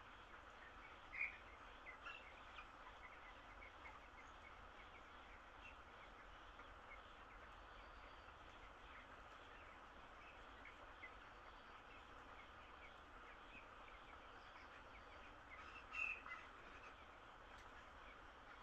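Broiler chicks peeping faintly and scattered over a steady background hiss, with two louder peeps about a second in and near the end.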